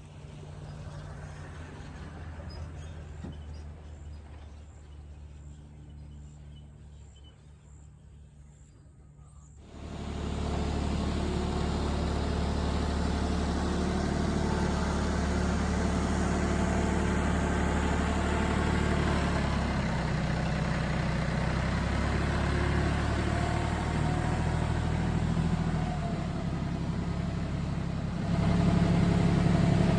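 An engine running steadily at low revs. It becomes louder about ten seconds in and again near the end.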